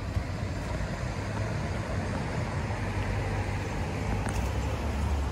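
Steady low vehicle rumble with street traffic noise.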